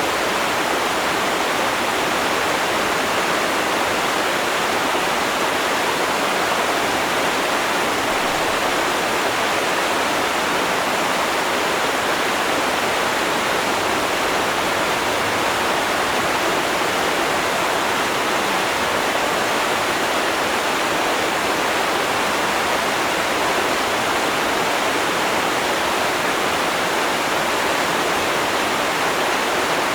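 River water rushing and splashing in a steady, even wash of noise, with no breaks or changes.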